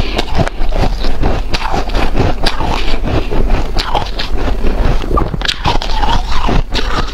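Close-miked biting and chewing of powdery, snow-like freezer ice with hard ice chunks in it: dense, irregular crunching, with a few squeaky notes in the second half.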